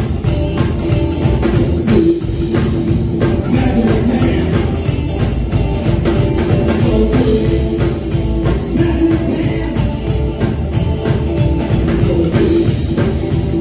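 Live rockabilly band playing: upright bass, electric guitar and drum kit, with a steady beat.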